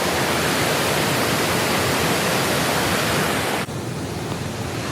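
Steady loud rush of flowing water. It drops suddenly to a quieter rush about three and a half seconds in.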